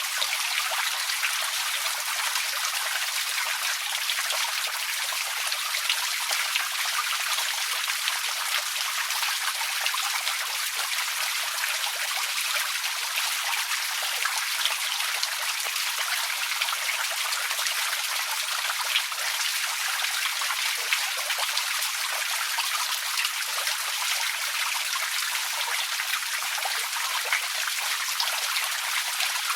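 Outdoor water fountain running: a steady splashing and trickling of falling water, hissy and bright with almost no deep rumble.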